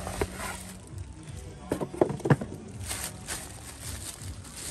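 Handling noise: a plastic bag wrapping a cordless tool rustles and crinkles, with a few sharp knocks from cardboard boxes about two seconds in.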